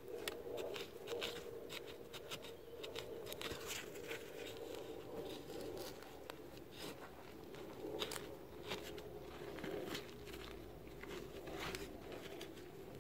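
Metal hand trowel digging and scraping through dry, root-filled soil, with crunching and rustling and irregular sharp clicks as the blade strikes. Near the end a gloved hand brushes soil aside.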